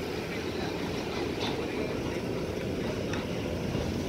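Empty BOBRYN hopper wagons of a freight train rolling past, a steady low rumble with a couple of faint clicks.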